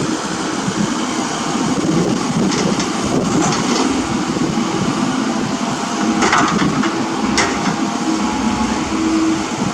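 Komatsu mini excavator's engine running steadily while it digs, with the bucket scraping and knocking in the ground a few times, the sharpest knock about seven seconds in.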